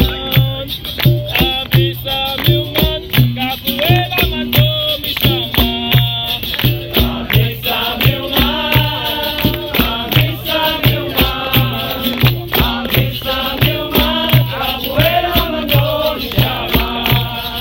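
Live capoeira roda music: voices singing over a steady low drum beat of about two strokes a second, with sharp percussion strokes and a shaken rattle.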